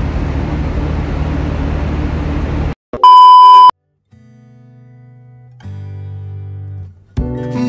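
Steady low drone of the ferry's engine that cuts off abruptly, followed by a loud, pure beep tone lasting under a second. Low electronic tones then swell in two steps, and music with plucked guitar starts near the end.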